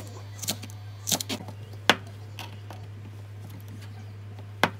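Chef's knife chopping green onion and rice cake on a plastic cutting board: a handful of irregular sharp knocks in the first two and a half seconds, a pause, then one more knock near the end, over a low steady hum.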